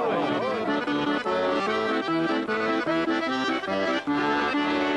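Accordion playing a tune, its chords and melody notes changing quickly and evenly.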